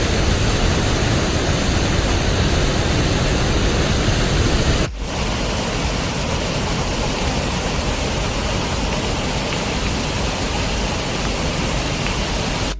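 Loud, steady rush of a waterfall's falling water. The sound switches abruptly about five seconds in to a slightly quieter, brighter rush of the same kind, a cut to a second shot of the falls.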